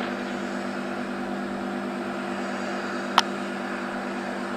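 A single sharp gunshot about three seconds in, over the steady low drone of a vehicle engine running.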